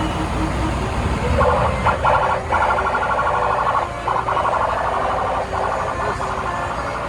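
Indonesian 'telolet' multi-tone bus horn playing its tune in four stretches with brief breaks, starting about a second and a half in, over a steady low engine rumble.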